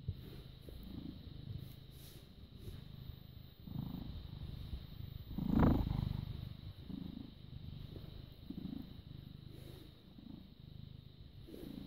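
British Shorthair cat purring close to the microphone: a low, continuous rumble that swells roughly every second or so. About halfway through there is one louder, brief noise.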